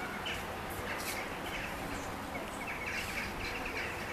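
Small birds chirping in short, repeated notes over a steady outdoor background noise, with a few crisp crunches as a cat chews dry kibble.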